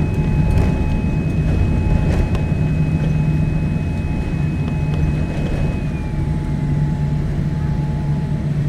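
Cabin noise of a Boeing 787-9 rolling along the runway after landing: a steady low rumble with the whine of its Rolls-Royce Trent 1000 engines. A high whine slides down in pitch about six seconds in.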